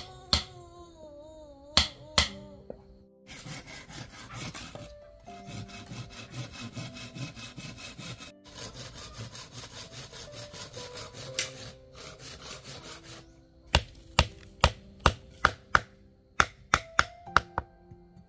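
Steel hammer striking wooden pieces: a few blows at the start and a quick run of about ten sharp blows near the end. In between is a long stretch of rapid rasping strokes, like a hand saw cutting wood. Soft background music with held notes plays underneath.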